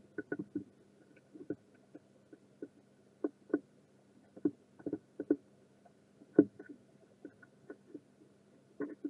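Irregular light taps and clicks of small hand tools at work on a tablet repair, over a faint steady hum.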